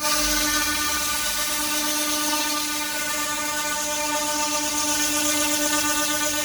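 Handheld 2 kW continuous-wave fiber laser cleaning head removing rust: a loud, steady buzzing hiss with a fixed pitch from the scanning beam. It starts abruptly.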